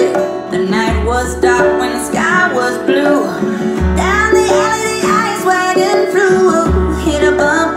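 Song with singing and guitar played through Kenwood S-9M hi-fi speakers and an SW-7 active subwoofer, a deep bass note coming in about every three seconds.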